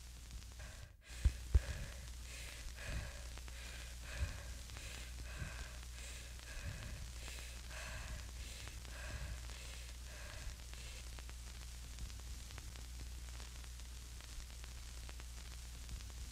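Low steady electrical hum under a faint static hiss, with a few sharp clicks in the first two seconds. From about three seconds in, faint pitched blips repeat a little under twice a second, then die away around eleven seconds.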